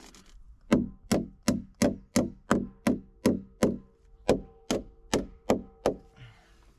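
Hammer nailing a sheet-metal band onto a log post: about fourteen sharp blows, two or three a second with a short pause midway, each leaving a brief metallic ring from the sheet metal.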